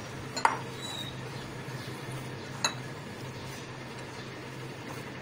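A cut-glass bowl clinks sharply twice, about half a second and two and a half seconds in, as mashed potato and spices are kneaded in it by hand, over a steady low hum.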